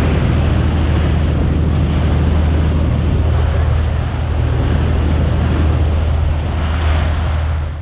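A boat's engine drones steadily while it is underway, with water rushing past the hull and wind buffeting the microphone.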